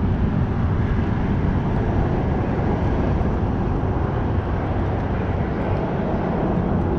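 Steady low rushing noise with no distinct events, strongest in the low range.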